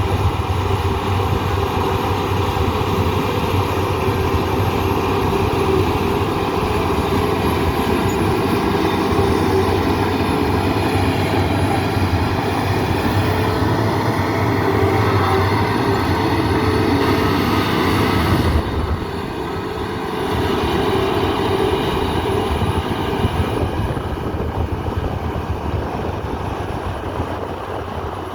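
Bulldozer's diesel engine running steadily with a heavy low rumble; it drops in level about 19 seconds in, then picks back up a little.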